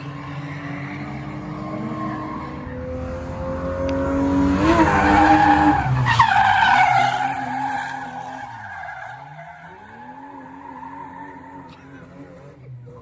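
Drift car engine held at high revs while the tyres squeal and skid through a slide; the sound is loudest about five to seven seconds in. Around nine seconds in the revs drop sharply and climb back, and the sound then fades.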